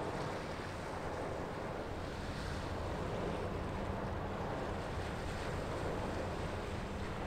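Steady wash of wind and water, with a low, steady drone underneath from a passing oil products tanker.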